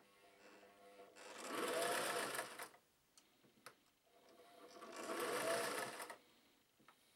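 Singer 404G sewing machine's direct-drive motor stitching in two short runs, speeding up and slowing down each time, with a couple of light clicks between the runs. During the second run the stitch-length selector is held in the reverse position.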